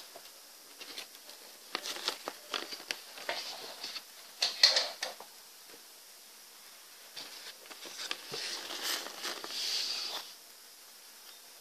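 Folded paper origami pieces being handled and moved on a tabletop: irregular crinkling and light taps in two spells, the loudest about five seconds in.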